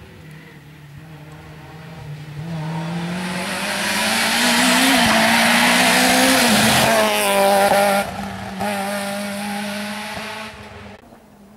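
Peugeot 106 rally car's engine at full throttle on a stage, growing louder as it approaches, changing pitch with the gears as it passes close, then dropping abruptly about eight seconds in and fading away.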